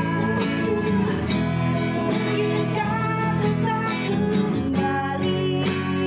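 Background music led by guitar, with a steady beat.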